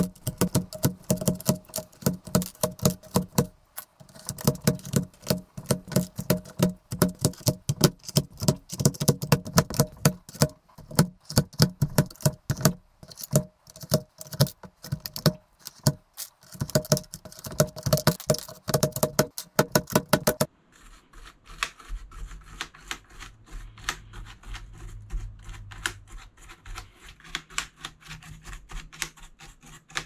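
Keycaps being pulled off an RT101 keyboard by hand in quick succession: a dense run of plastic clicks and snaps, several a second. About twenty seconds in, the clicking gives way to softer scratching as a brush sweeps dust and debris from between the bare key switches.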